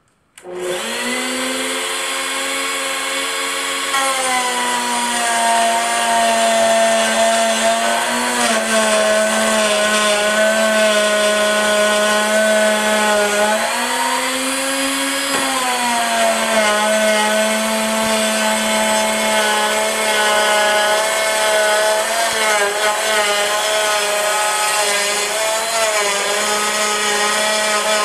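Electric router starting up and cutting a 3/4-inch groove in 3/4-inch-thick 6061 aluminium plate: a loud, steady high whine. Its pitch sags slightly once the bit is cutting and rises briefly about halfway through before settling back.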